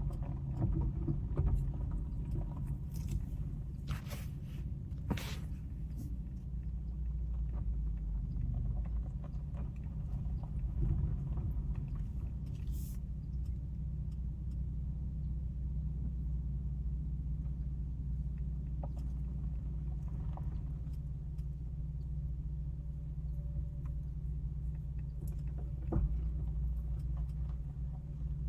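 Steady low rumble of a car heard from inside the cabin, with a few faint clicks and knocks.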